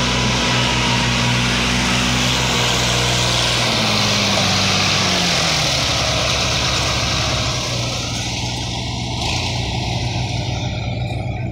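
Diesel farm tractors pulling heavily loaded sugarcane trolleys past at close range, engines running steadily under load. About four seconds in, the engine pitch falls and settles lower, and the sound eases a little near the end as the next tractor, an Al-Ghazi, moves away.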